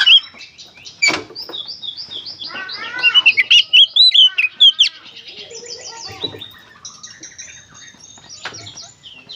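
Oriental magpie-robin (kacer) singing a fast, varied song of whistled slurs, chirps and rapid stuttering runs of repeated notes, with two sharp clicks, one about a second in and one near the end.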